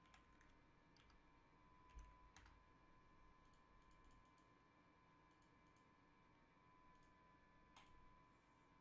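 Near silence: room tone with a faint steady hum and a few faint, scattered computer clicks.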